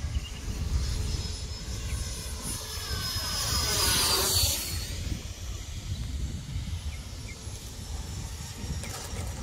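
Radio-controlled model Mirage delta-wing jet making a fast pass overhead: a rushing whoosh that swells about three seconds in and peaks around four seconds, its high whine dropping in pitch as it goes by, then fades away.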